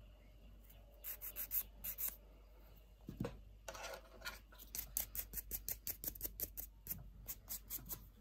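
Quick, faint scratchy rubbing strokes on fingernails, a few in a cluster early and then about three or four a second through the second half: nail-prep work such as filing or brushing off dust before base coat.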